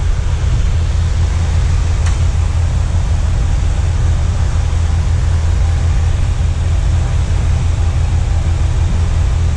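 Steady low mechanical rumble with a faint hiss above it, and a faint click about two seconds in.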